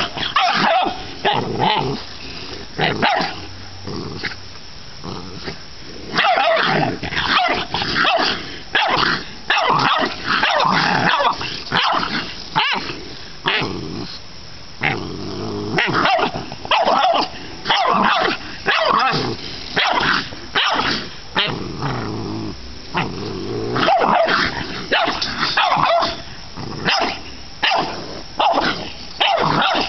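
Dogs barking and growling at a raccoon held in a wire live trap: many sharp barks in quick succession, with stretches of growling between them.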